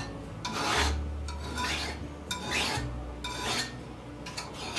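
Hand file stroking back and forth across the edge of a steel piece held in a vise, about two strokes a second. It is breaking the edges, filing off the burrs ('fish hooks') that chisel work left on the steel.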